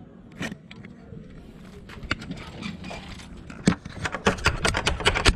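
Knocking and rattling at a house door: a quick run of sharp clacks starting about three and a half seconds in, after a single clack near the start.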